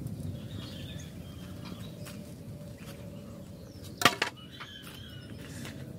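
Steady outdoor background with faint bird chirps, and a sharp double click about four seconds in.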